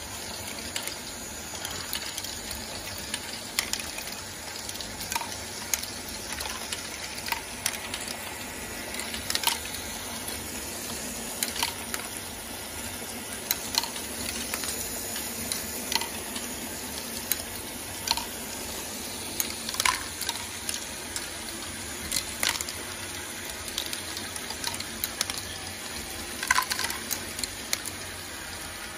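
Lego Great Ball Contraption running: a continuous rattle of small plastic balls rolling and tumbling through motor-driven Lego Technic modules, with sharper clacks about every two seconds as balls drop and strike the plastic parts.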